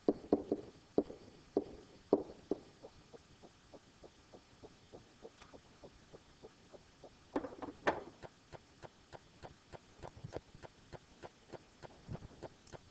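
Pen stylus tapping and scraping on a writing surface as a word is hand-written, in irregular knocks over the first couple of seconds. Under it runs a faint, steady ticking of about three clicks a second, and there is a louder pair of knocks about eight seconds in.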